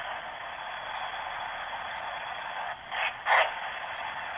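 Steady white-noise hiss from a spirit-box app playing through a flip phone's small speaker, with two short louder bursts about three seconds in.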